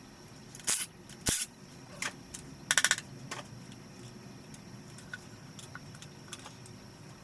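Metal knocks and clinks of hand tools and engine parts during piston removal from an RB25DET Neo engine block: three separate sharp knocks, then a quick rattling run of clicks a little before the middle, then a few faint ticks.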